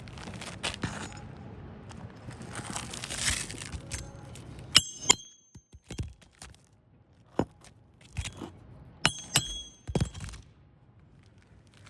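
Metal hand tool working roof shingles: a scrape about three seconds in, then sharp metallic clinks that ring briefly, in two quick pairs around five and nine seconds in, among lighter taps and knocks.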